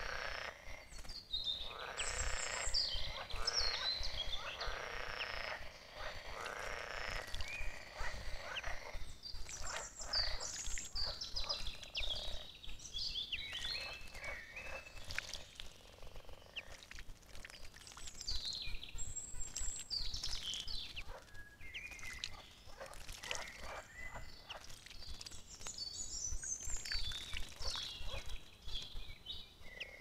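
Frogs croaking in a forest pool, a dense chorus that is thickest in the first several seconds and thins out after, with several songbirds singing short, high, sliding phrases over it throughout.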